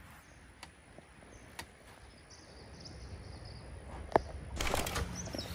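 Quiet outdoor ambience with faint, high bird chirps and a few light clicks; a low rumble builds in the second half and a short burst of rustling noise comes near the end.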